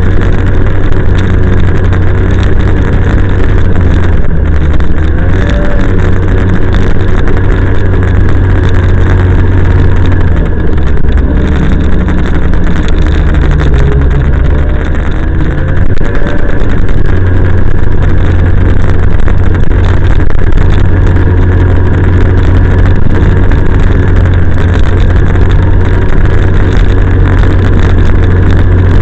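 Snowmobile engine running loud and steady while riding, heard from the rider's seat, its pitch rising and falling slightly a few times with changes in speed.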